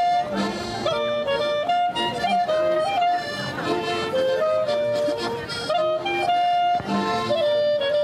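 Live folk dance music from a small band, an accordion playing a quick melody of short held notes.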